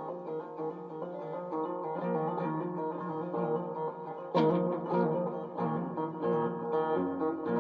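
Guitar being played, a run of plucked notes with a hard strum about four and a half seconds in.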